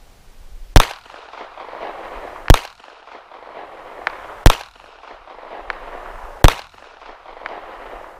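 Four pistol shots from a Ruger LCP II chambered in .380 ACP, fired at an even pace about two seconds apart, each followed by a fading echo.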